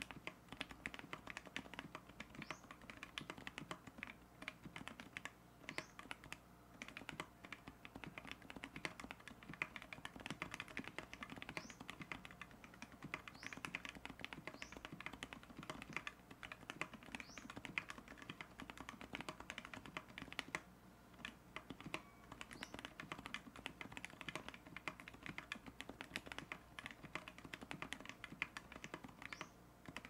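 Fast, continuous typing on a 60% mechanical keyboard with lubed and filmed TTC Bluish White switches, PBT keycaps, an aluminium plate and case foam: a dense stream of key clacks, with a brief pause about two-thirds of the way in.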